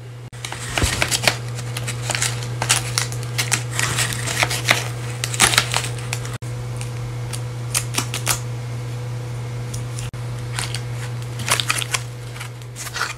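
Paper dragon puppets snapping their jaws shut: sharp papery clicks in quick runs, over a steady low hum.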